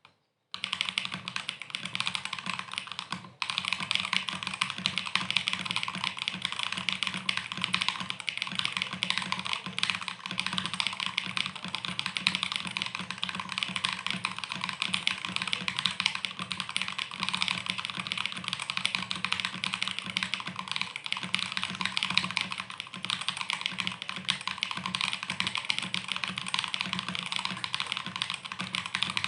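Fast, continuous typing on a Redragon K630W mechanical keyboard with KTT Kang White linear switches, stock stabilizers, tempest mod and PE and EVA foam. The keystrokes start about half a second in and barely let up, with one short break about three seconds in.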